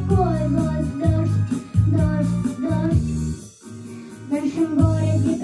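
A young girl singing into a microphone over a pop backing track with a steady beat and bass line. The music drops out briefly a little past the middle, then comes back in.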